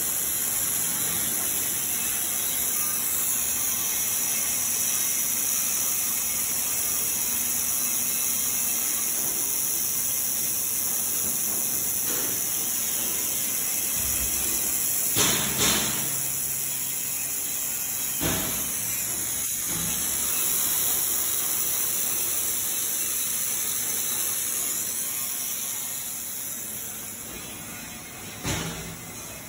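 Handheld fibre laser welding torch hissing steadily while welding stainless steel, the hiss of its shielding gas. A few sharp clicks come about halfway through and again near the end.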